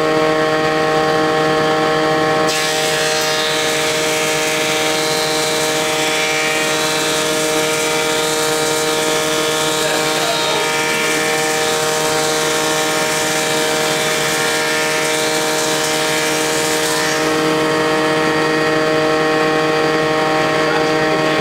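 Wadkin Bursgreen UO2 18-inch thickness planer running steadily alongside a dust collector. About two and a half seconds in, its cutterhead bites into a poplar board and a harsh rushing cut sound rides over the machine's hum, stopping about four seconds before the end as the board clears the knives.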